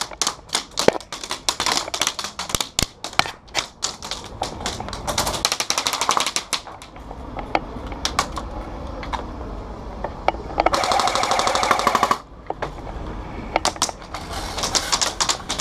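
Airsoft gunfire: scattered sharp snaps of shots and BB hits, then a rapid full-auto burst of about a second and a half roughly eleven seconds in, the loudest sound, and another rapid burst near the end.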